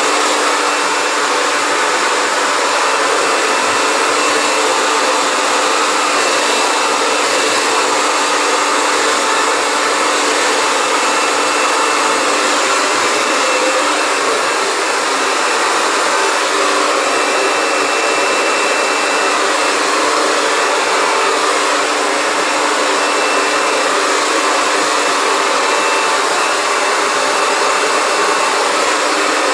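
Hair dryer running steadily: an even rushing blow of air with a faint motor whine, unchanged throughout.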